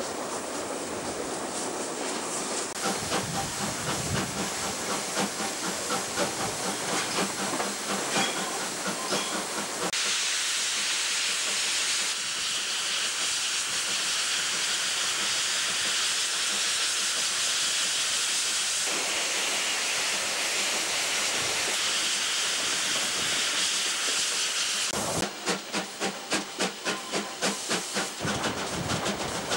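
A train rolling along with a rhythmic clatter of wheels, then steam locomotive 621 hissing steadily with escaping steam. Near the end come about three seconds of quick even beats, about four a second, before the steady hiss returns.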